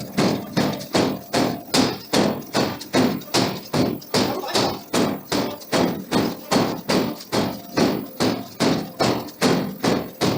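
Steady, even hammer blows forging a steel billet, about two and a half strikes a second, each a sharp metallic impact with a short ring.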